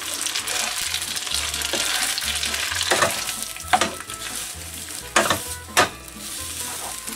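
Spaghetti tossed with a wooden spatula in a pan of hot sage butter: a steady sizzle with the wet slither of the noodles being stirred. Several sharp knocks of the spatula against the pan fall in the second half.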